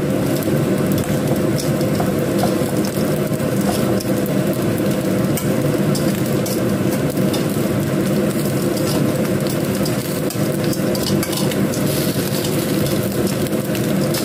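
Egg-coated slices of sticky rice cake (kue keranjang) shallow-frying in oil in a nonstick pan, with a steady sizzle and fine crackling throughout. Now and then metal tongs tick against the pan as the slices are turned.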